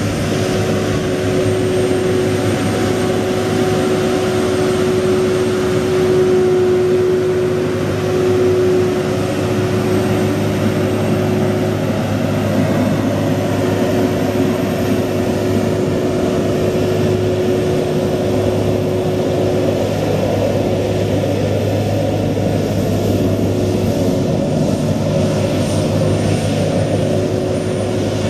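Mercedes-Benz MBE 4000 12.8-litre inline-six diesel of a Freightliner M2 water truck idling steadily, a constant low drone with a steady pitched hum over it.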